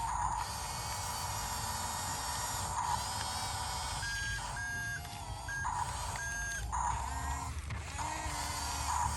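YIGONG YG258C excavator running, with a low engine rumble under a whine that rises and falls in pitch as the machine works.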